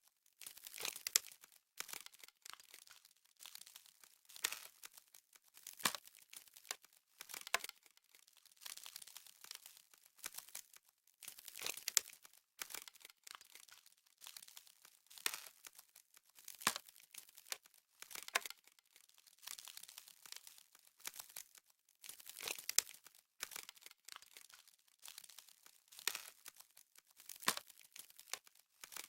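Crisp crackling and crunching of frost, in short uneven bursts about once a second.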